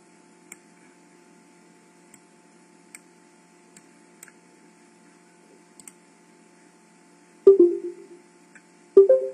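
Faint, irregular clicks of a computer mouse or keyboard over a steady low hum from an open microphone on a video call. Near the end, two louder short knocks, each with a brief low ringing.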